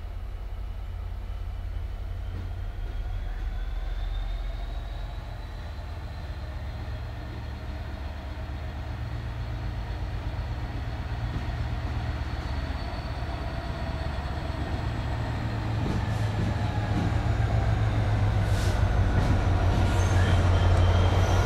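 A GBRf Class 66 diesel locomotive's EMD two-stroke V12 engine running as it approaches at the head of a freight train of tank wagons, its rumble growing steadily louder. A faint high whine runs above it, and a few clicks come near the end.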